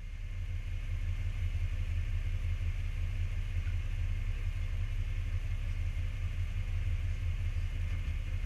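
A low, steady rumble with a faint hiss above it, fading in over the first second.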